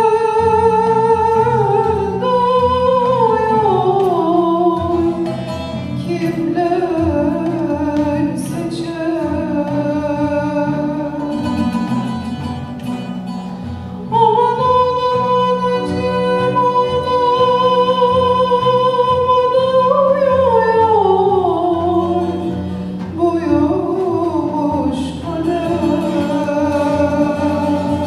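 Bozlak, a Turkish folk lament, sung over instrumental accompaniment: long held high notes that fall away in ornamented descending phrases, twice, the second held note starting about halfway through.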